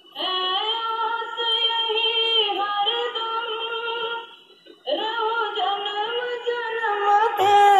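A Hindi devotional bhajan played back through the F&D W12 waterproof Bluetooth speaker: a high voice sings long, held notes, pausing briefly about halfway through before going on.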